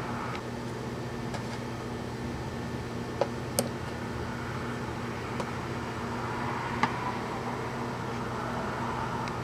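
A steady low hum and hiss, broken by a few small sharp metallic clicks as a screwdriver works screws loose from an aluminium amplifier chassis panel; one click rings briefly.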